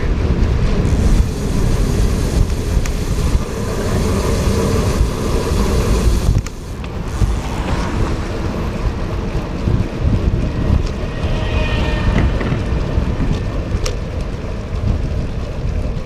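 Wind buffeting the microphone of a handlebar-mounted camera on a moving road bike, with tyre noise from the wet road. The rumble eases a little about six seconds in.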